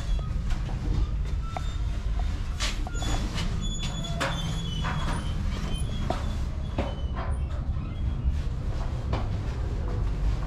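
City street ambience: a steady low traffic rumble with many scattered clicks and knocks and a few faint high squeals.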